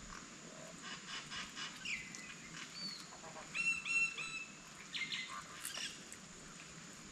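Birds calling: quick runs of short notes and a few gliding whistles, loudest in a burst of harsh repeated notes a little past halfway, over a steady high-pitched hum.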